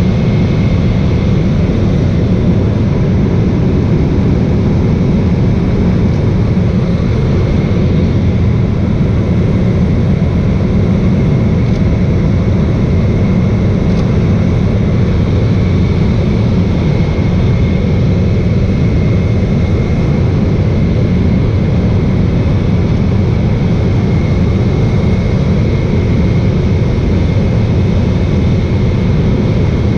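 Steady drone of a high-wing seaplane's propeller engine in level cruise, heard from inside the cabin, with a faint steady high whine above it.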